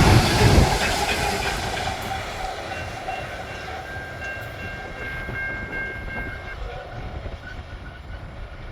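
Loram rail grinding train rolling away, its rumble and wheel clatter fading steadily. A few seconds in, a thin steady high tone sounds for about three seconds.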